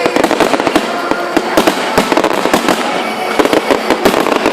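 Aerial fireworks display going off: a dense, continuous barrage of sharp bangs and crackles, many per second.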